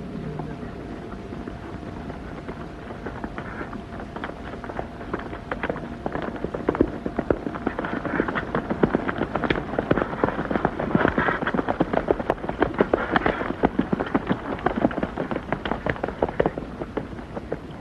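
Hoofbeats of horses galloping on hard ground: a dense, irregular clatter that grows louder from about four seconds in, stays loud through the middle and thins out near the end.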